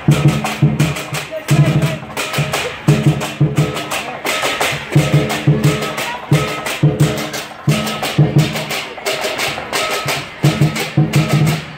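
Chinese lion dance percussion: a large drum beating with clashing cymbals in a fast, driving rhythm.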